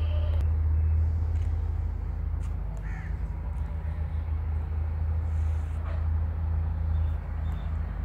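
A steady low drone runs throughout, with a few short, faint bird calls over it: one about three seconds in and a couple of high notes near the end.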